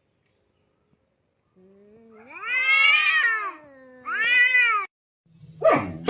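A cat meowing twice: a long, drawn-out meow that rises and falls in pitch, then a shorter one. A sudden noisy sound starts just before the end.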